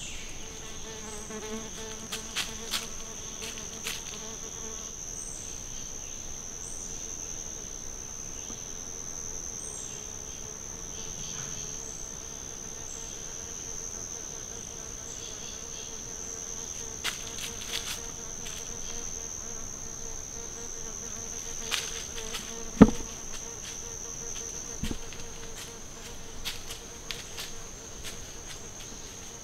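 Steady, high-pitched drone of an insect chorus in summer woods. A few scattered faint clicks and one sharp knock about two-thirds of the way through stand out over it.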